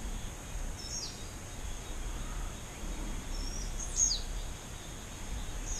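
Steady high insect buzz, with a short sweeping bird call about a second in and a louder one about four seconds in, over a low rumble.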